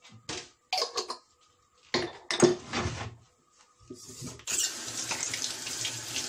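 Dishes and utensils knocking and clattering, a few separate knocks with the sharpest about two and a half seconds in. Then a kitchen tap is turned on and water runs steadily into a sink from about four and a half seconds in.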